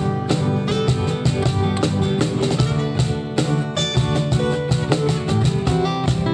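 Instrumental band music with plucked strings over drums, played to a steady beat.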